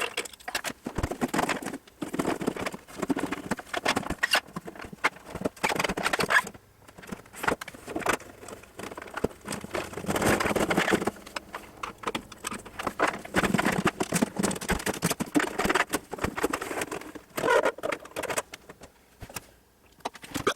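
Irregular clicks, knocks and rattles of tools and metal parts being handled as a LeCroy DDA-125 oscilloscope is opened up.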